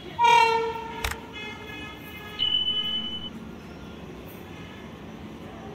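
Horn of an approaching WAP-1 electric locomotive: a loud blast about a quarter second in that fades over the next second or so, with a sharp click about a second in. A second, shriller tone follows about two and a half seconds in and lasts under a second.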